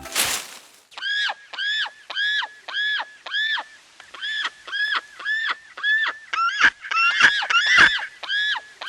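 A bird calling over and over, about two short honking calls a second, each rising then falling in pitch; it is played as the call of a secretary bird. A brief whoosh sounds at the very start.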